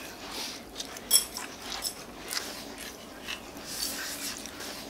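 Light clinks and taps of spoons and chopsticks on bowls and dishes at a meal: a few scattered strokes, with one sharper ringing clink about a second in.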